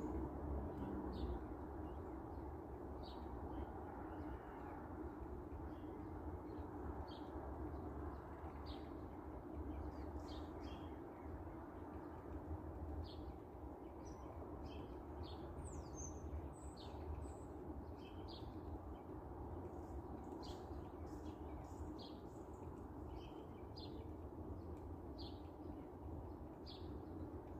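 Small birds chirping: short high calls every second or so, one of them a quick falling whistle about halfway through, over a steady low background rumble.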